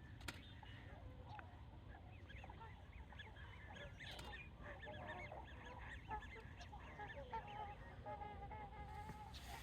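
A flock of swans calling together: many short, overlapping honking calls, over a steady low rumble.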